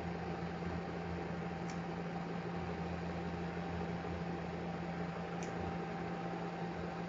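Steady low hum and hiss of room noise, with two faint ticks about two and five seconds in.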